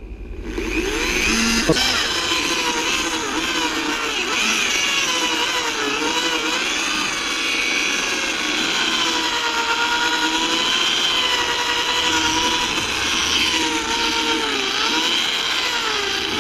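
Power drill spinning a foam polishing pad with rubbing compound against a plastic headlight lens: a steady motor whine that starts about half a second in, its pitch wavering and dipping a few times.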